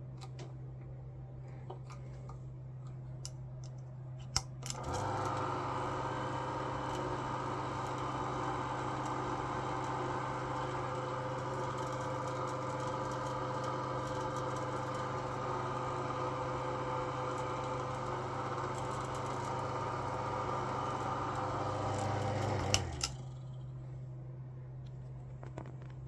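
Antique metal General Electric hair dryer switched on with a click, its motor and fan running steadily for about eighteen seconds, then clicked off and falling quiet quickly.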